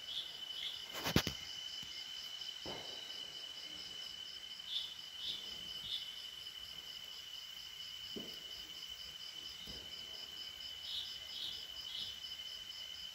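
Burning coconut husk fibre giving a few sharp crackles, the loudest about a second in. Behind it, night insects keep up a steady high trill, with two runs of three short chirps.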